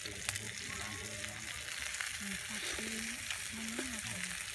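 A steady hiss with faint crackling and a few sharp clicks, one of them near the start.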